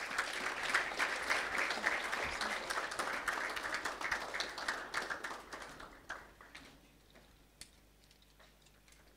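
Small audience applauding, a patter of many hand claps that dies away about six seconds in, leaving a few scattered claps.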